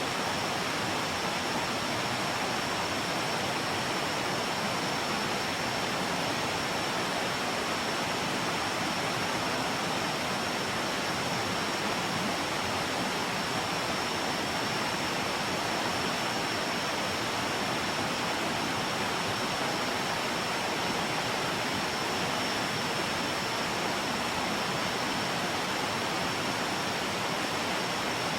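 Rushing water of a jungle river: a steady, even noise with a thin, steady high-pitched tone over it.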